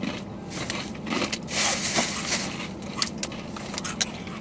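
Crunchy rolled tortilla chips (Takis Fuego) being chewed close to the microphone: irregular crunching crackles, with the plastic snack bag crinkling.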